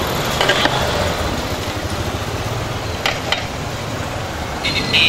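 A long metal paddle stirring and turning chicken biryani in a large aluminium pot, knocking sharply against the pot twice, about half a second and three seconds in, over a steady rumble of street traffic. A high steady tone starts near the end.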